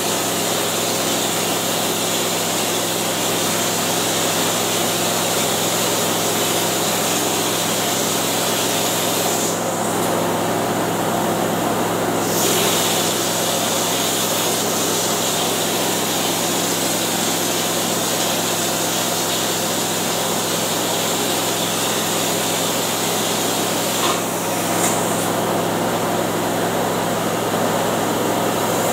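Ceiling texture spray gun hissing as it sprays texture, over the steady hum of a motor, the air compressor feeding it. The high hiss dips about ten seconds in and again around twenty-four seconds in.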